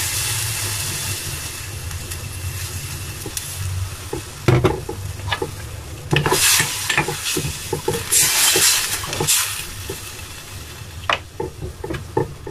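Cold water hitting a hot stainless steel saucepan of browned vegetables and fish bones: a sizzling hiss that fades away over the first couple of seconds. Then a spoon stirring in the pot, with clinks against the metal and short bursts of sloshing and scraping.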